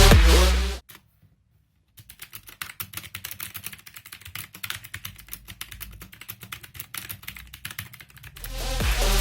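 Typing on a RedGear Invador MK881 mechanical keyboard with Kailh Blue switches: a fast, steady run of clicking keystrokes lasting about six seconds. Electronic music fades out just before it and fades back in near the end.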